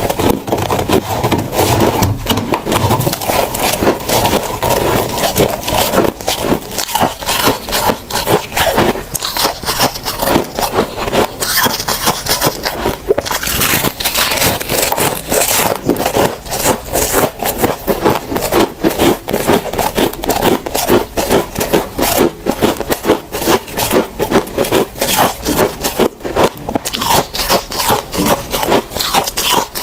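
Close-up crunching and chewing of freezer frost: a dense, rapid, irregular run of crisp crunches and scraping bites.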